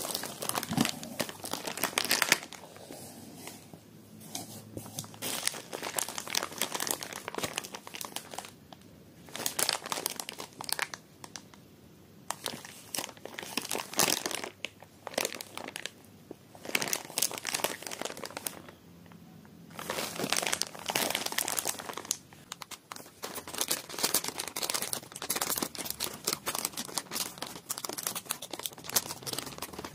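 Glossy plastic packaging of wet cat food multipacks crinkling and rustling as it is handled and pulled from a box, in irregular bursts with a few short pauses.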